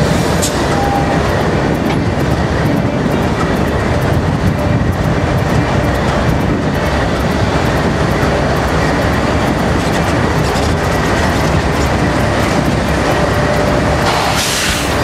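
A train passing close by: a steady, loud noise of wheels running on the rails, with no let-up.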